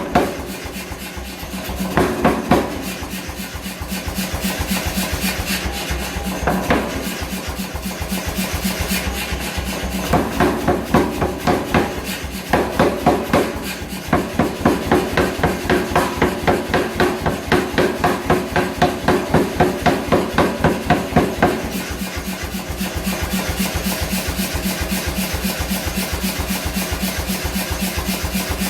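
Rapid, even hammer blows on hot wrought iron, about three to four a second, over a steady background noise; the blows come in runs and ease off for a while near the end.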